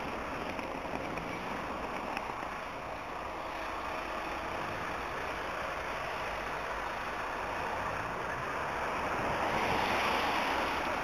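Car traffic passing on a wet road, tyres hissing on the wet tarmac. One car passes close near the end and the hiss swells louder.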